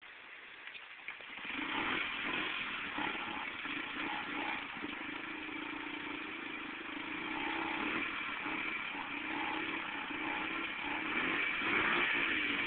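Honda CRF70 dirt bike's small four-stroke single-cylinder engine running, its pitch rising and falling with the throttle. It comes in about a second and a half in and grows a little louder near the end.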